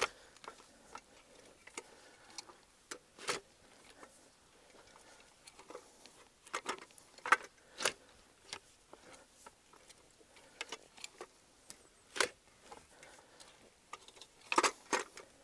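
Irregular dry clicks and crackles from a long-handled manual soil-working tool whose tines are drawn through loosened soil and a crust of dead dry grass. Louder snaps come in clusters about seven seconds in and again near the end.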